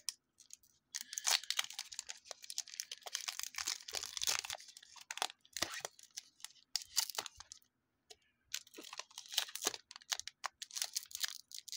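Foil Pokémon booster pack wrapper being torn open and crinkled by hand: a run of crackling rips and rustles, with a short pause about eight seconds in.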